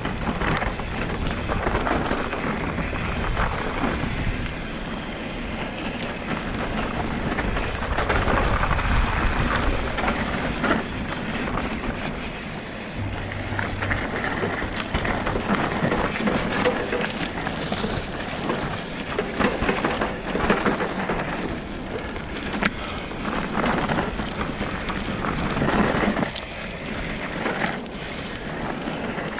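Mountain bike descending a steep, wet, muddy trail, heard from an on-bike action camera: continuous rumble of wind on the microphone with the bike clattering and knocking over rough ground.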